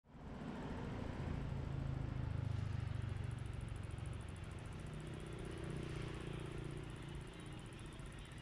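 Street traffic noise: a steady low engine hum over a wash of road noise. It comes in suddenly at the start and eases off slightly after about three seconds.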